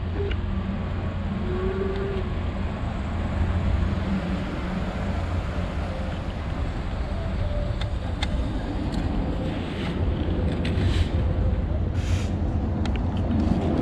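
Low wind rumble on the microphone and road noise from a scooter rolling along a city street, with a few light clicks or rattles in the second half.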